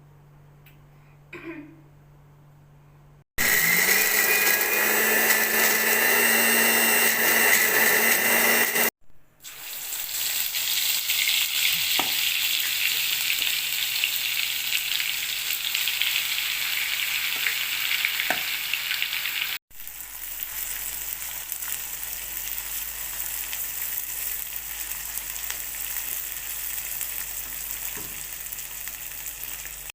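Food sizzling steadily in hot oil in a pan, in three stretches that start and stop abruptly at edits. The first and loudest stretch carries a steady high tone under the sizzle. A few light taps sound later on.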